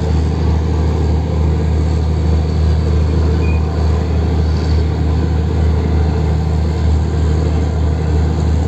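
A fishing ship's diesel engine running with a steady, loud low drone, heard on board.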